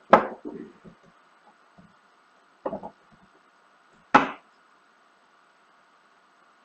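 Three sharp knocks on a 3D printed plastic mold: one just after the start, a weaker one a couple of seconds later, and a strong one about four seconds in. The mold is being tapped to loosen its halves and free the cast silicone part.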